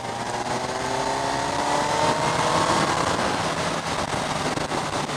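Kawasaki Z1000SX's inline-four engine revving up as the motorcycle accelerates. Its note rises steadily for about two and a half seconds, then eases off, over steady wind and road noise. The engine is new and still being run in.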